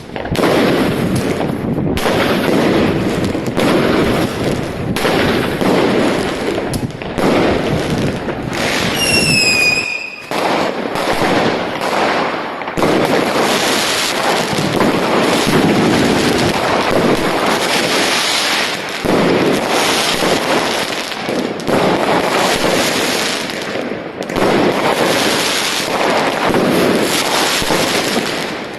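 Fireworks going off in rapid, continuous succession: dense bangs and crackling with barely a break. A short falling whistle sounds about nine seconds in.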